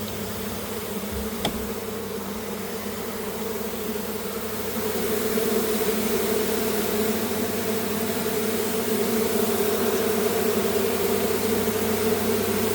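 A mass of agitated honeybees buzzing in a steady, dense drone that grows louder about five seconds in, as the colony is driven out of its nest cavity.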